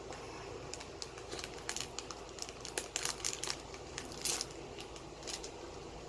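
Trading cards being handled, crinkling with a scatter of short, sharp crackles and clicks.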